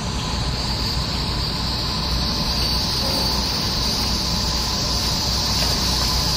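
A loud, steady hissing noise over a low hum, its high hiss slowly rising in pitch as the whole grows slightly louder.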